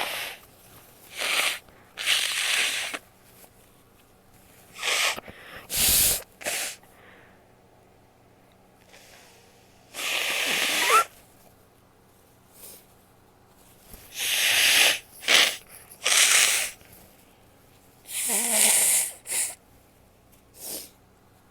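A woman sneezing over and over, with sharp breaths and false starts between the sneezes, a dozen or so short bursts with quiet gaps between; a few carry a voiced "ah" sound.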